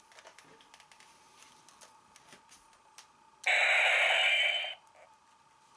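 Kamen Rider Ryuki Drag Visor toy gauntlet playing a short, loud electronic sound clip through its small tinny speaker, starting about three and a half seconds in and lasting just over a second. Light plastic handling clicks come before it.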